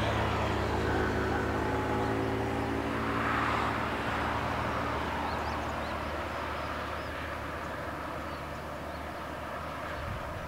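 Diesel intercity bus engine heard on a highway as the bus drives away, its note sagging slightly and the sound slowly fading, with a hiss of tyre and road noise.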